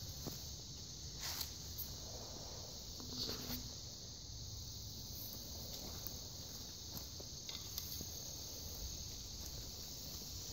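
A steady high chorus of insects trilling in the woods, with a few soft rustles and clicks of footsteps through undergrowth.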